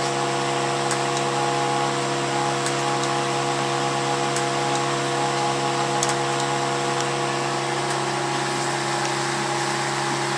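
A steady machine hum with several steady whining tones that stays the same throughout.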